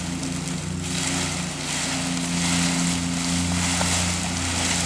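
A steady, low engine drone that holds without a break, with a faint hiss above it.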